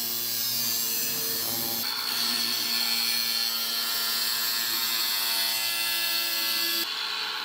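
Angle grinder with a thin cut-off disc running and cutting into the edge of a sheet-steel panel, a steady high whine with grinding hiss, to make a short relief slit for a sharper bend. The sound cuts off suddenly near the end.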